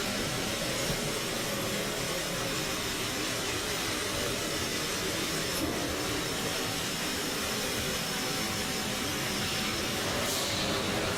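Refrigerator shredding plant running: a loud, steady, even machine noise with a faint steady hum in it. A brief brightening of high hiss comes near the end.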